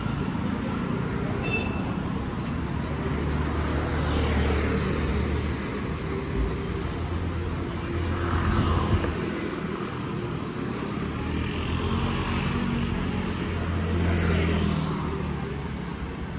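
Street traffic: vehicles passing in swells every few seconds over a steady low hum. A high, even chirping pulse sounds about two to three times a second and stops a few seconds before the end.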